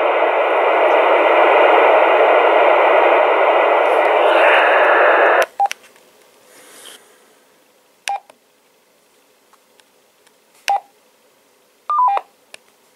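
CRT 279 UV dual-band mobile radio's speaker hissing with open-squelch static while the monitor function is on, cutting off suddenly about five and a half seconds in. Then a few short key beeps from the radio, the last a quick falling three-note beep near the end.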